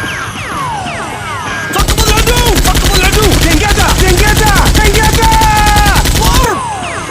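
Automatic-gunfire sound effect: a long, rapid, loud burst starting about two seconds in and stopping sharply near the end, with falling whistling tones before and through it.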